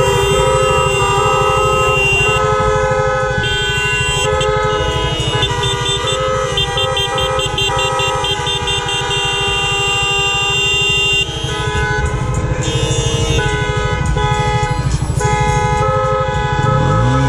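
Many car horns honking at once, long held blasts overlapping into a chord that shifts every few seconds, with a rapid toot-toot-toot pattern about four times a second in the middle. A motorcycle engine idles low underneath.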